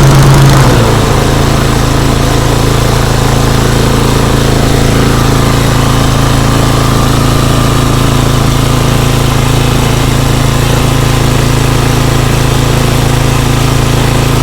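Toro TimeMaster walk-behind lawn mower's petrol engine running steadily under mowing load; its pitch dips slightly about a second in, then holds.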